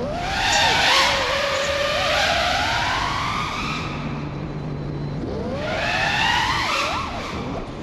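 FPV freestyle quadcopter's brushless motors whining, the pitch sliding up and down with the throttle, with a rush of air over the quad during two stretches of hard flying.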